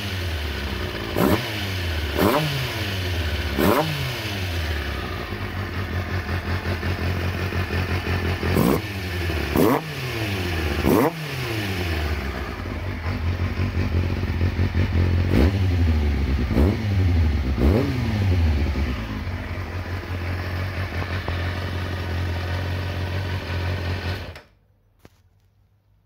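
Kawasaki ZX-4's 398 cc inline-four engine idling through an aftermarket silencer and blipped with the throttle about ten times, each rev rising sharply and falling back to idle. The engine is switched off near the end.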